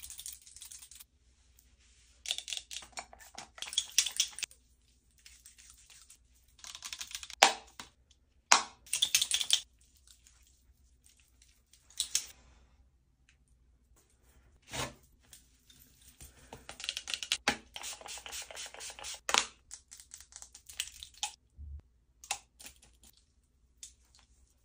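Close-up skincare handling sounds: clicks and taps of product containers, with rubbing and patting of hands on skin, in short irregular bursts.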